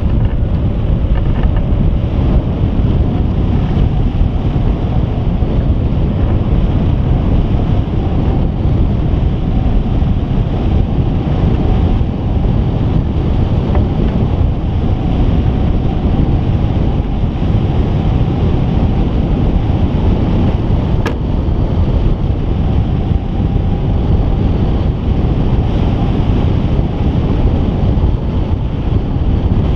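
Loud, steady wind rushing over the microphone of a camera mounted on a hang glider in flight, the airflow at flying speed. A faint whistle wavers in pitch through it, and there is one sharp click about two-thirds of the way through.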